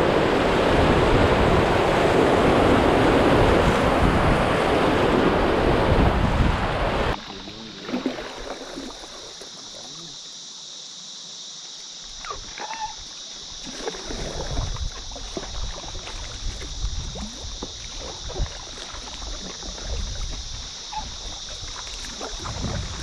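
Whitewater rapid rushing loudly around an inflatable kayak for about seven seconds, then cutting suddenly to a calm stretch of river: much quieter, with a steady high hiss and light paddle splashes and drips.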